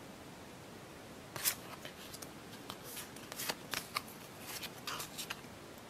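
Star Wars Force Attax trading cards being handled in the hands, one card slid and flicked against the others. About a second and a half in there is a run of short, irregular clicks and rustles.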